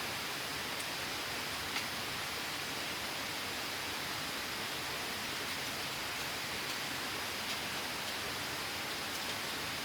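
Steady rushing of falling water, an even hiss with no change, and one faint tick about two seconds in.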